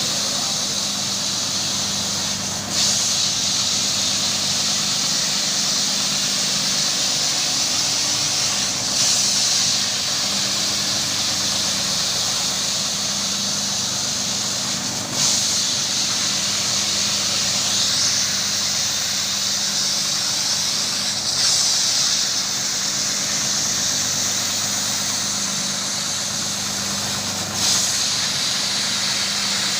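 Carpet-washing machine running steadily with a hum and a strong hiss, the hiss swelling briefly about every six seconds.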